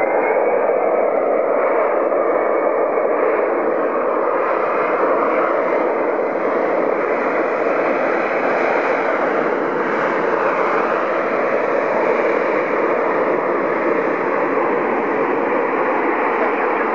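Boeing 767 jet engines running at high power as the airliner rolls along the runway: a loud, steady rush of engine noise, with a high whine that rises and levels off right at the start.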